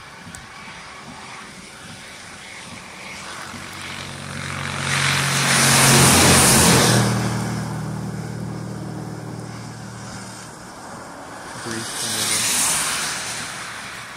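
A vehicle passes on a wet road: tyres hissing on the wet pavement with a low engine hum, swelling to its loudest about six seconds in and then fading. A second, fainter vehicle passes near the end.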